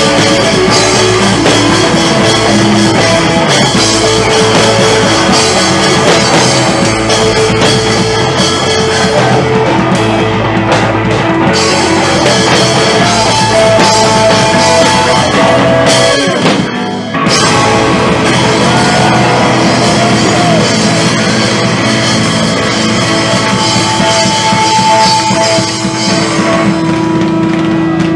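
Punk rock band playing live: electric bass, guitar and a drum kit, loud and dense, with a brief break in the playing about seventeen seconds in.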